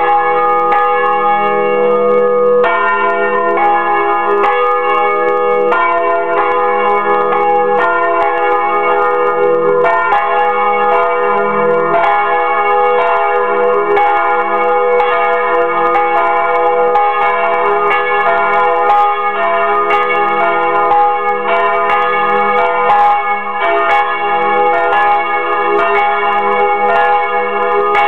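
Two swinging church bells, a large bell cast by Fremy and a small bell by Bachert, ringing together close up in the belfry. Their strokes overlap in an uneven pattern and the tones hang on between strikes. This is the Saturday-evening ringing-in of Sunday.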